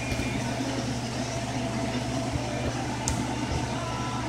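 Steady low mechanical hum of running workshop machinery, with a light click about three seconds in.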